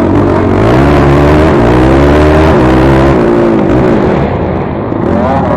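Yamaha YFZ450 quad's single-cylinder four-stroke engine running hard under racing throttle. Its pitch climbs and drops back twice in the first few seconds, as at gear shifts, then eases off before revving up again near the end.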